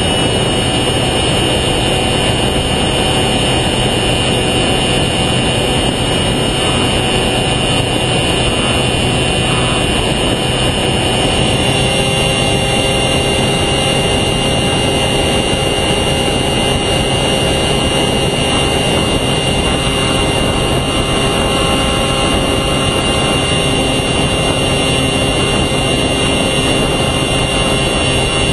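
Onboard recording of a Specter v2 FPV plane's electric motor and propeller running steadily in cruise, a constant whine of several steady tones over a heavy rush of wind noise.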